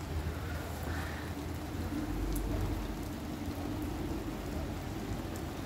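Steady rain falling in a thunderstorm, with a low rumble of thunder underneath that swells and fades.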